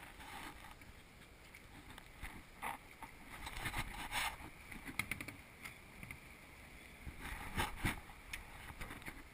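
Handling noise from a camera being fitted and adjusted on a kayak's deck: irregular clicks, knocks and scraping, with a cluster near the middle and two louder knocks near the end.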